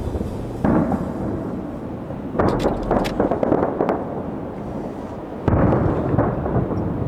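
Aerial fireworks going off: shell bursts booming and echoing, with a burst of rapid crackling in the middle.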